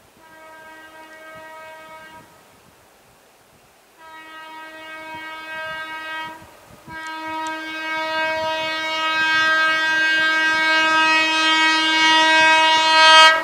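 Horn of an ICF MEDHA EMU local train, blown three times as the train approaches. Two blasts of about two seconds are followed by one long blast of about six seconds that grows louder as the train nears, then cuts off suddenly near the end.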